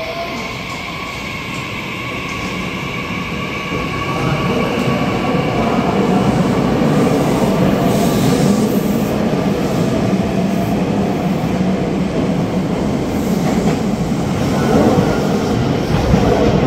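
Meitetsu 9500/9100 series electric train pulling away from an underground station platform. Its motor whine climbs slowly in pitch as it gathers speed, and a growing rumble of wheels on rail grows louder, echoing in the station box.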